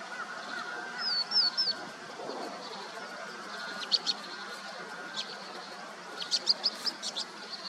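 Small birds, likely vinous-throated parrotbills, giving short, sharp high-pitched calls in scattered bursts, with a quick run of them near the end. A lower repeated call note fades out in the first second.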